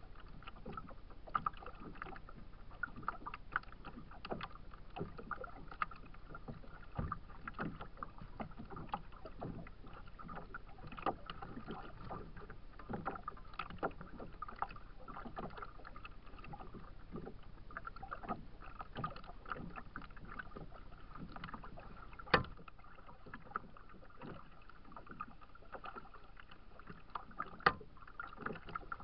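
Small waves lapping and slapping irregularly against a kayak's hull, with two sharper knocks late on.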